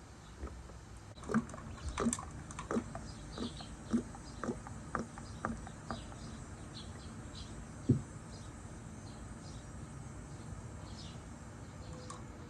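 Motor oil glugging out of a bottle into a funnel: a run of gurgles about two a second that stops about halfway through, then one sharper knock.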